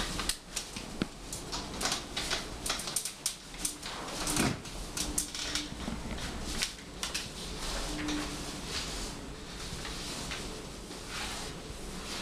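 Scattered rustles, taps and light knocks of a person crawling on hands and knees, first on a folding camp cot and then across a tiled floor.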